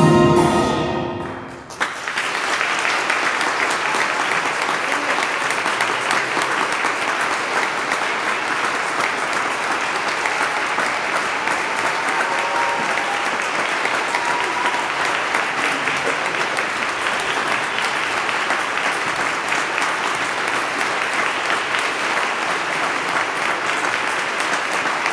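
A symphonic wind band's final held chord of brass and woodwinds dies away, then audience applause breaks out about two seconds in and continues steadily.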